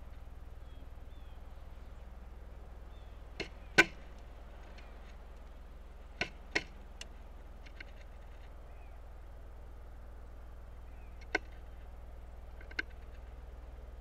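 Pileated woodpecker hammering its bill into a suet block on a platform feeder: a few sharp, irregular knocks, mostly in pairs, the loudest about four seconds in.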